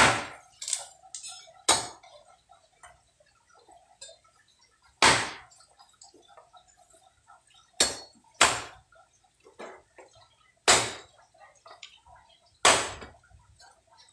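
A cleaver chopping thin branches into kindling on a round wooden chopping block: about eight sharp chops at irregular intervals, with small clatters of sticks between them.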